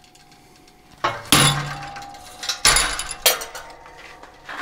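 Hammer striking a touch-mark stamp into a hot steel hook on a steel block: three hard metallic blows with a short ring, from about a second in, and a lighter knock near the end.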